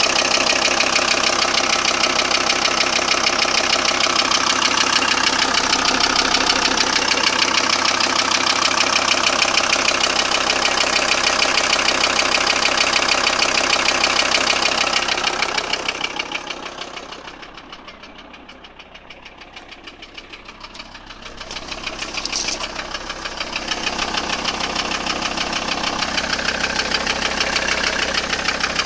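Volkswagen T4's 2.5 TDI (AXG) five-cylinder diesel engine running at idle with a rattle, the fault the owner is trying to trace. It drops well down in loudness about halfway through for several seconds, then comes back up.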